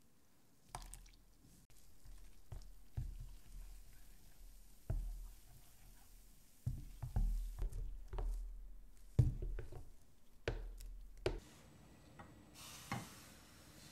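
Silicone whisk beating a thin semolina batter in a bowl: irregular wet squishing and dull knocks of the whisk against the bowl. A short hiss comes near the end.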